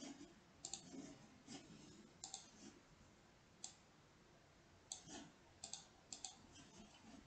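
Faint computer mouse clicks at an irregular pace, several of them in quick pairs.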